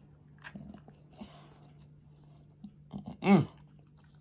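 A person chewing a soft mouthful of stuffed baked sweet potato close to the microphone: faint, scattered wet mouth clicks. Near the end comes a hummed "Mmm" of enjoyment, the loudest sound here.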